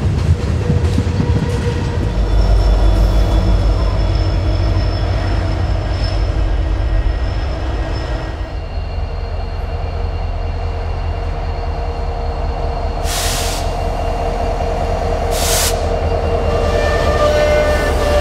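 Freight train rolling past with a steady low rumble of wheels on rail. After a cut, Norfolk Southern diesel locomotives approach and pass close by, their engines running with a steady drone. Two short bursts of hiss come about 13 and 15 seconds in.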